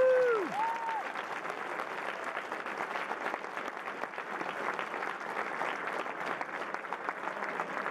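Audience applauding steadily, with a couple of short whooping cheers in the first second.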